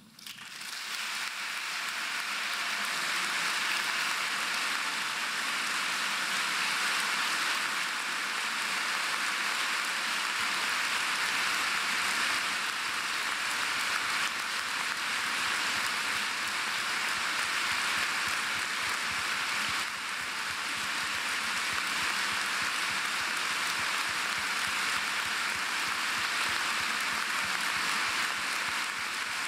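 Large audience applauding, dense and steady, swelling up within the first second or two and then holding without a break.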